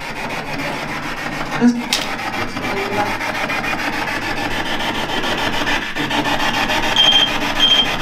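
Spirit box sweeping through radio stations: a steady, rasping static hiss, with two short high beeps near the end.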